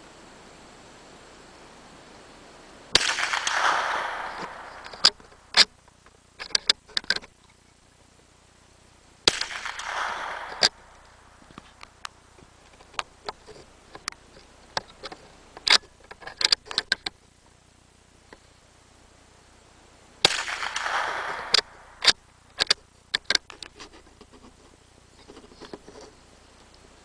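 Three shots from a CZ 452 American bolt-action .22 LR rifle, each a sharp crack followed by an echo that dies away over about a second and a half. The second comes about six seconds after the first and the third about eleven seconds later. After each shot comes a quick run of sharp metallic clicks as the bolt is worked to eject and chamber a round.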